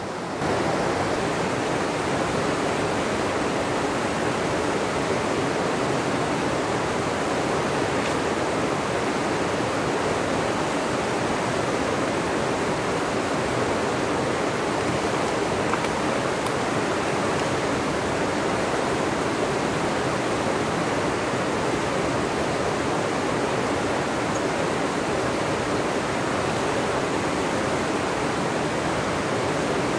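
Steady rush of a fast mountain river running over rocks and riffles.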